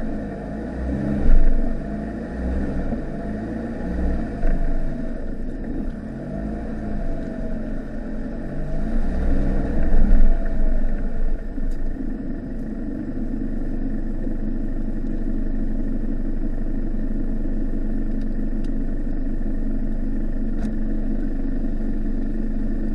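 The 2.8-litre turbodiesel of a 1995 Mitsubishi Delica, heard from inside the cab, working up and down in speed as it pulls up a rough track, with louder surges about a second in and around ten seconds. From about halfway it settles into a steady idle.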